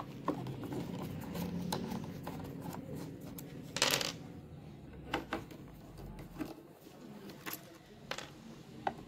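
Screwdriver working at the screws of a speaker cabinet's back panel: scattered small metallic clicks and taps, with a brief louder rasp about four seconds in.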